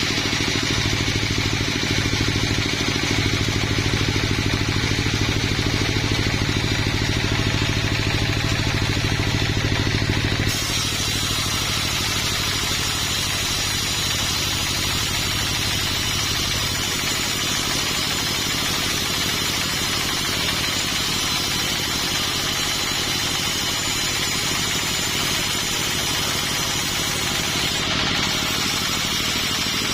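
Engine running steadily, a continuous mechanical drone whose tone changes abruptly about ten seconds in.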